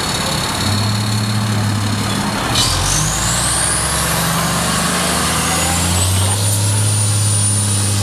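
A fire engine's diesel engine pulls away and accelerates, its pitch stepping up and down as it works through the gears. A thin high whine rises steeply in pitch about two and a half seconds in, and another rises near six seconds and then holds steady.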